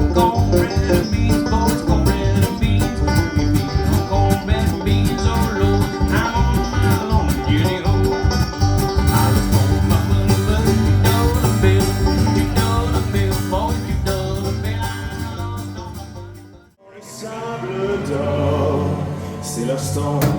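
Upbeat bluegrass-style music with banjo and guitar that fades out about 17 seconds in. Different music with a heavy low line starts straight after.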